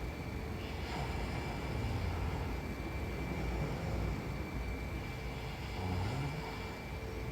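A sleeping woman snoring: low rumbling breaths swell and fade every couple of seconds over a steady hiss and a faint steady whine.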